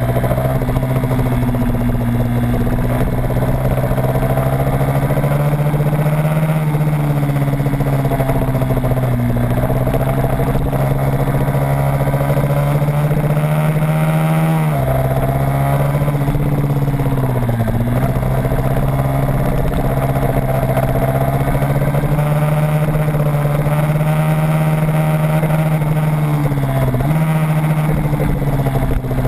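Motorcycle engine running hard through a lap, its pitch held high and steady along the straights and dropping briefly several times as the throttle is closed for corners, most deeply about halfway through, again a few seconds later and near the end.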